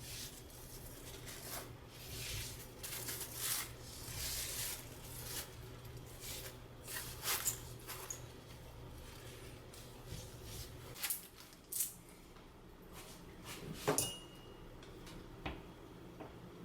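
Irregular rustling and scraping handling noises with a few sharp clicks and knocks in the second half, from tiles and tile adhesive being worked by hand. A low steady hum stops about two-thirds of the way through.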